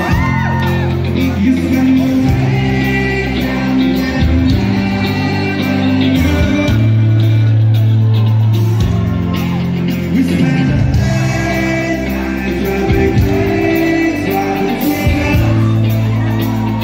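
Live rock band playing loudly with a lead singer, the bass holding long notes that change every second or two.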